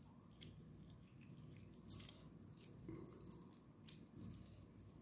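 Faint squish of half a lemon being squeezed by hand, with a few soft ticks spread through it.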